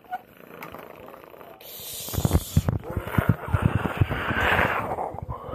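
A person imitating a gunfight with the mouth: hissing, sputtering noise with a fast, irregular run of popping sounds starting about two seconds in.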